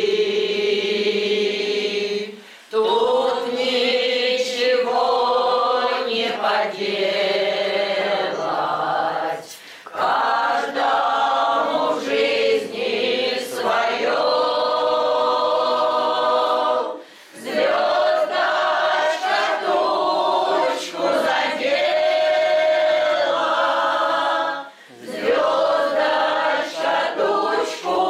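Mixed choir of men's and women's voices singing a song together, in long phrases separated by short pauses for breath about every seven seconds.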